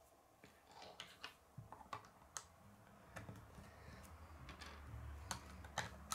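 K'nex plastic rods and connectors clicking as they are pressed and snapped together by hand: faint, sharp clicks at irregular intervals.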